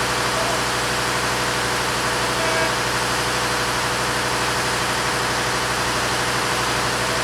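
Diesel locomotive engine idling steadily, a constant low hum with a faint steady tone above it.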